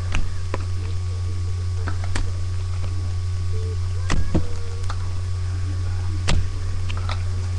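A steady low hum, with several short clicks and taps from Pokémon trading cards being handled, the clearest around two, four and six seconds in.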